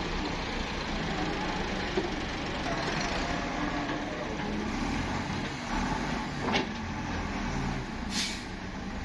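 Diesel engine of a John Deere wheeled excavator running steadily, with two short hisses about six and a half and eight seconds in.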